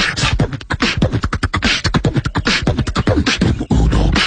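Beatboxing: a fast, loud run of mouth-made kick, snare and hi-hat sounds, several strokes a second.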